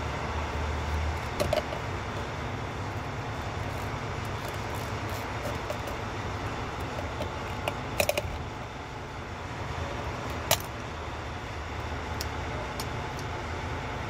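Sharp plastic-and-metal clicks of a pick prying the horn button cap out of a Freightliner steering wheel, the loudest a pair about eight seconds in and another a couple of seconds later, over a steady low rumble.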